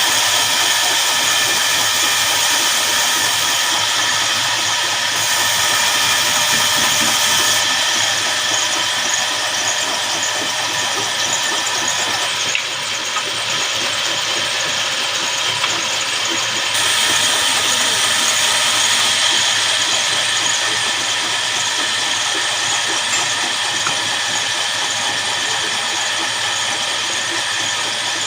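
Horizontal band sawmill sawing a jackfruit log: a steady mechanical hiss with several constant high tones, shifting slightly twice along the way.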